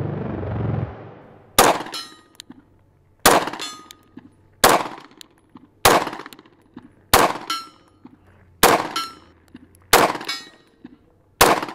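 Sig Sauer M18 9mm pistol firing eight slow, single shots about a second and a half apart, each shot sharp and followed by a few faint clicks. Intro music fades out just before the first shot.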